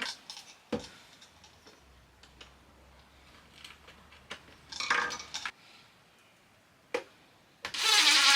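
Small tools and hardware handled on a workbench while tiny screws go into a piano hinge: a few sharp clicks, a short rasping burst about five seconds in, and a louder sustained grinding sound starting near the end.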